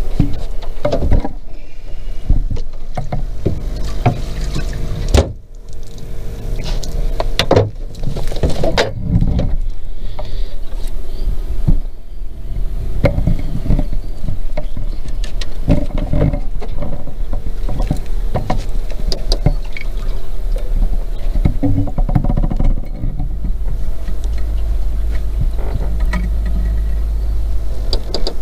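Boat motor running steadily while trolling, with scattered knocks and clatter of fishing gear being handled, the sharpest about 5, 7, 9 and 12 seconds in.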